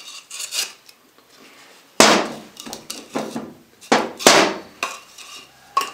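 Narrow wooden boards knocking and clattering against each other and on a workbench as they are handled and fitted side by side. It comes as a series of sharp knocks, the loudest about two seconds in and again just after four seconds.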